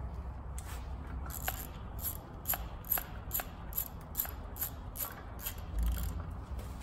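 Hand ratchet clicking in a steady series, about two or three clicks a second, as bolts are run in on an engine's timing cover. A dull thump comes near the end.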